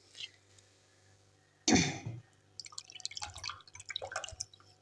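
Water poured from a cup into a cooking pan: a short splash about two seconds in, then a couple of seconds of irregular dripping and trickling.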